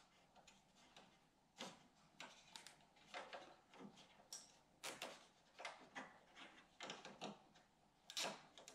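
Faint, irregular clicks and rustles of hands pulling a cable tie around a fan wire and fastening it to the plastic frame of an electric radiator fan.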